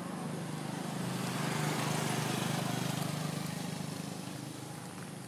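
A motor vehicle engine running steadily, growing louder to a peak about two seconds in and then slowly fading.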